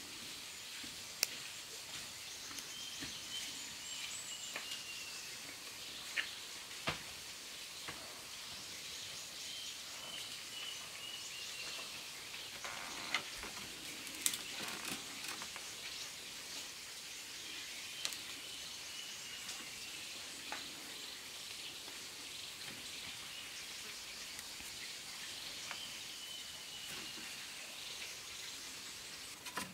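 Forest ambience: a steady high hiss, and a bird calling a short falling phrase about every seven to eight seconds. Scattered light clicks and knocks come from bamboo and cord being handled.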